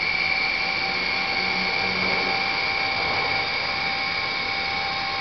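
Small electric drive motor of a welding carriage's seam-tracking (倣い) unit running, a steady high-pitched whine that holds an even pitch.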